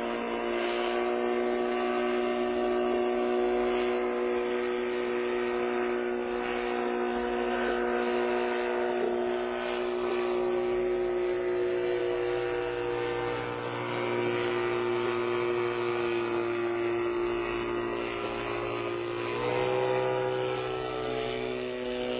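Engine of a homemade helicopter running steadily at a constant speed, then revving higher near the end.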